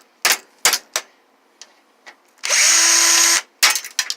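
Power drill backing out a screw: one run of about a second in the middle, steady in pitch, with several short sharp clicks before and after it.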